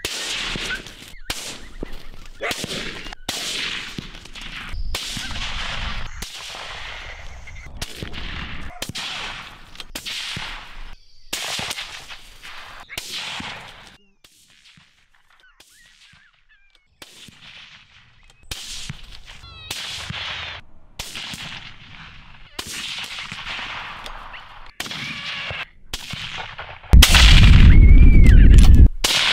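Rifle shots in quick succession, well over a dozen sharp cracks at irregular intervals, each trailing off into echo. There is a quiet gap of a few seconds about halfway, and a very loud, sustained rumbling stretch lasting about two seconds near the end.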